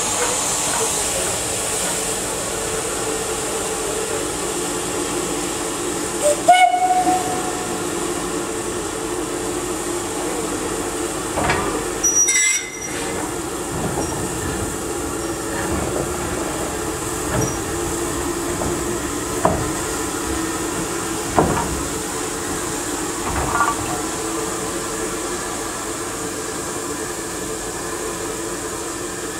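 Steam locomotive hissing steadily, with a few short knocks and clanks.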